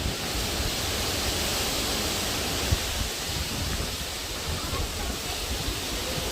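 Hurricane-force wind rushing as a steady hiss, with gusts buffeting the microphone in a low rumble that comes and goes. One brief sharp bump about two and a half seconds in.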